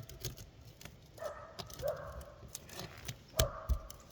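Sharp clicks and knocks of a flat bar prying under a sealed asphalt shingle, the loudest knock about three and a half seconds in. About three short whine-like squeals, each under a second, sound along with them.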